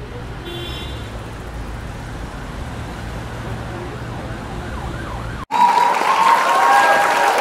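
A low, steady rumble, then about five and a half seconds in an abrupt cut to a loud cheering crowd with whoops and whistles.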